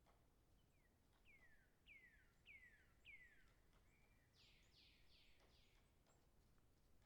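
Distant woodpecker pecking: sparse, faint taps. A bird sings over it, about five clear notes each sliding downward, then a run of four rougher notes near the middle.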